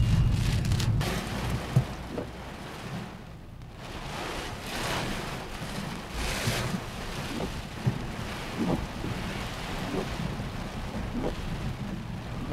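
Heavy storm rain pelting a car's roof and windshield, heard from inside the cabin, with scattered louder taps from big drops. A low rumble in the first second or so dies away.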